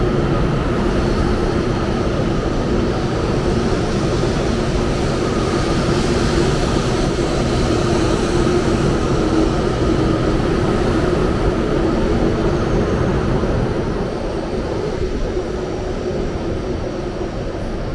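Taiwan High Speed Rail 700T train pulling out along the platform: a steady rush of wheels, air and motors with a steady hum through it. It grows quieter near the end as the tail passes and the train runs off down the track.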